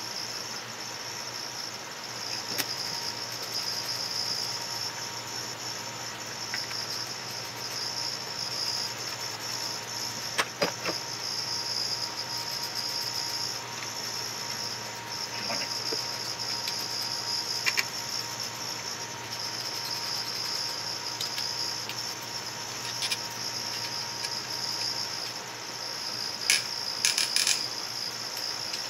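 A continuous high-pitched trill, of the kind crickets make, running with brief pauses over a low steady hum. A few light clicks and knocks from a hand and rag working over an electric motor's metal housing, with a short cluster of clicks near the end.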